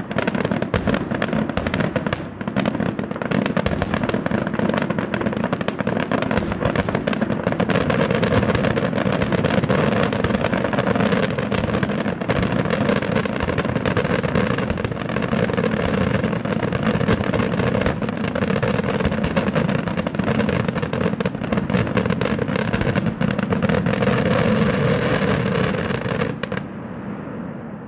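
Finale of an aerial fireworks display: a dense, continuous barrage of shells bursting and crackling. It stops abruptly about 26 seconds in and then dies away.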